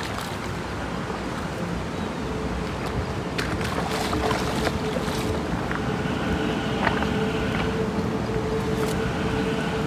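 Wind rushing over a phone microphone above a shallow river, with the water's wash, a few brief knocks about four seconds in, and a faint steady hum that sets in after a couple of seconds.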